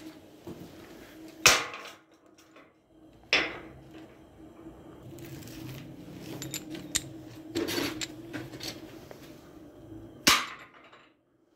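Steel hinge parts clanking against a steel door frame: three sharp metal knocks, the last near the end, with a few lighter clicks between them, over a steady hum.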